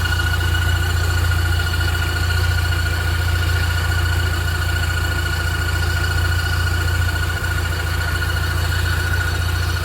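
Car engine idling with a steady high-pitched whistle from the joint between the engine's bell housing and the gearbox, a whistle whose cause has not been found.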